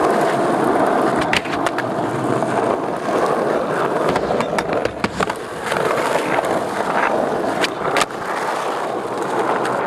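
Skateboard wheels rolling over rough asphalt, a steady gritty rumble. Several sharp clacks of the board cut through it, the last about eight seconds in as the rider pops the board for a trick.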